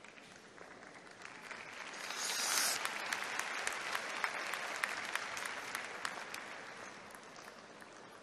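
Arena crowd applauding a figure skater, swelling about two seconds in and dying away near the end.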